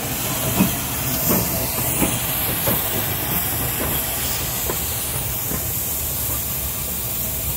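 GWR Saint class steam locomotive 2999 'Lady of Legend' moving off slowly: a steady hiss of steam from its open cylinder drain cocks, with a regular beat about every 0.7 seconds that fades in the second half as the engine draws away.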